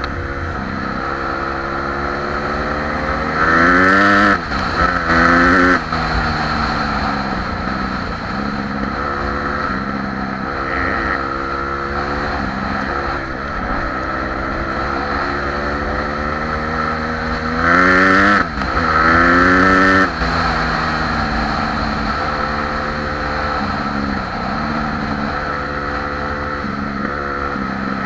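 Dirt bike engine running under way on a gravel track, its pitch climbing and dropping as the revs rise and fall through the gears. It gets loudest with two hard accelerations, about four seconds in and again about eighteen seconds in.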